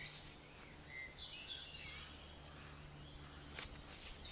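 Faint woodland birdsong: scattered chirps and a quick trill of repeated high notes, over a low steady hum, with a single sharp click about three and a half seconds in.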